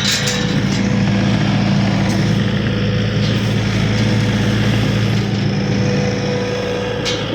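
Vehicle engine running steadily at an even pitch, with a brief sharp click at the start and another about a second before the end.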